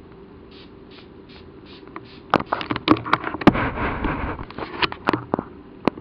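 Quaker parrot bathing in a shallow plastic tub of water, flapping its wet wings and splashing. The flurry of splashes starts about two seconds in and runs for about three and a half seconds, ending with a few single splashes.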